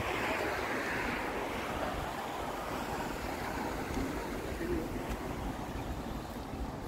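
Steady outdoor rush of surf and wind noise along a seafront, swelling briefly in the first second or so.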